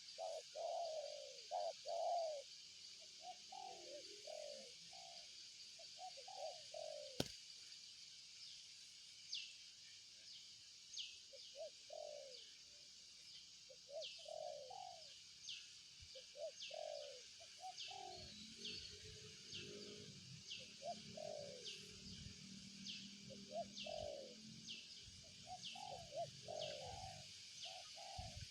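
Spotted dove (tekukur) cooing in short repeated phrases. From about a third of the way in, a high short chirp repeats roughly once a second behind it. A single sharp click comes near the quarter mark, and a low rumble is heard in the latter part.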